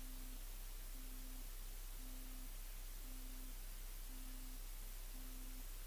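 A faint electronic beep repeating about once a second, each low-pitched beep lasting about half a second, over steady hiss and a low electrical hum.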